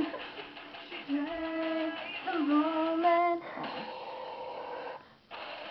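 A female voice singing two long held notes, the second swooping up at its start, over music, which carries on with a short dip near the end.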